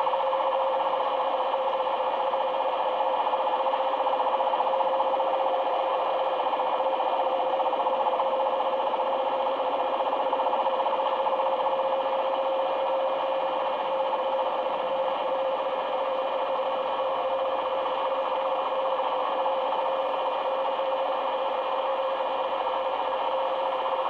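Sony ICF-SW7600G receiver's loudspeaker playing an unidentified signal on 1260 kHz medium wave, tuned in upper-sideband mode: a steady tone over a dense buzzing hiss, with fainter high whistles.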